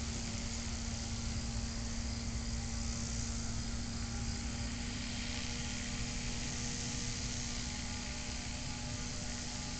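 Small engine of a powered hang glider running steadily at a distance while it warms up: an even drone with a faint hiss above it.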